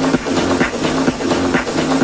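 Techno music from a live DJ set over an open-air sound system, with a steady beat of about two strokes a second over a repeating bass line.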